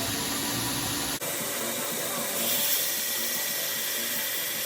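Belt sander running with a 60-grit belt, grinding a steel knife blade, giving a steady hiss over the motor. About a second in the sound changes abruptly: the low hum drops away, leaving a brighter, even grinding hiss.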